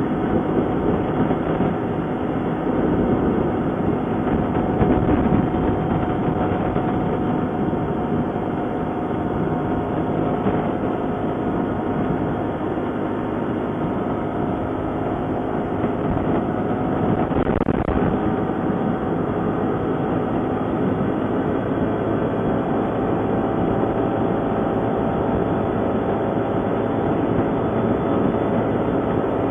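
ATV engine running at a steady speed while riding.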